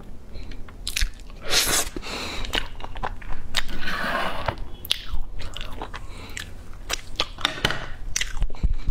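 A person chewing and biting food right at a clip-on microphone: wet mouth clicks and crunches, with two longer stretches of rustling about two and four seconds in.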